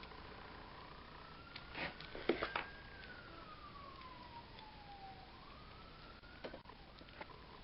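Faint siren wailing, its pitch rising slowly, falling over a few seconds, then rising again near the end. A few short clicks and knocks sound about two seconds in and again near the end, from dough rolls being handled and set into a pie plate.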